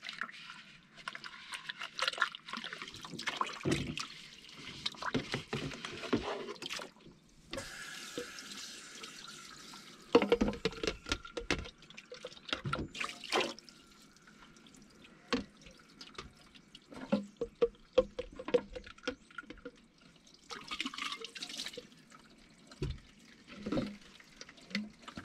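Dishes being washed by hand at a kitchen sink. Tap water runs and splashes for about the first ten seconds, with a short break near 7 s. Then dishes and cups clink and knock as they are rinsed and handled.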